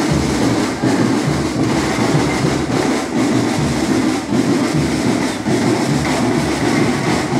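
Marching-band drums, snares and bass drums, playing a loud, steady, driving rhythm.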